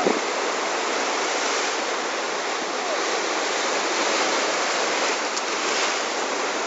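Heavy ocean surf breaking and white water washing over rocks: a steady rushing noise that stays at an even level.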